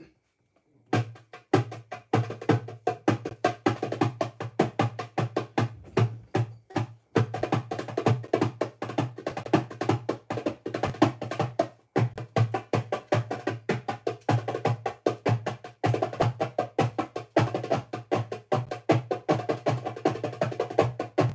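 Drums being played: a fast, even run of sharp strikes that starts about a second in and breaks off briefly a few times.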